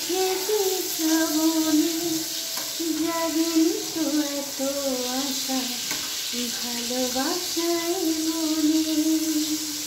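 A woman singing a slow tune in long held notes, over the steady sizzle of round brinjal slices shallow-frying in hot oil in a kadai, with the spatula stirring them now and then.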